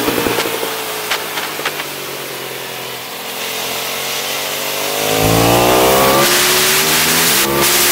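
Aprilia SXV 550 supermoto's V-twin through a titanium Akrapovic exhaust. The engine comes off the throttle with a few sharp pops and runs quieter for a couple of seconds. Revs then climb steadily from about three and a half seconds in as the bike accelerates hard, with a brief cut for a quick upshift near the end.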